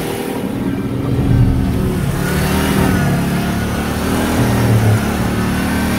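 Pickup truck engine running and revving, its pitch rising and falling.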